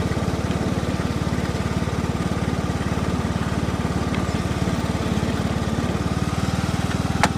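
John Deere riding lawn mower's 19.5-horsepower engine running steadily, its rapid firing pulses even throughout. There is a short sharp click near the end.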